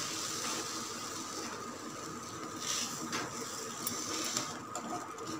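Wooden spatula stirring and scraping a thick mix of semolina and gram flour in sugar syrup around a nonstick pan, in soft repeated strokes, over a faint steady tone.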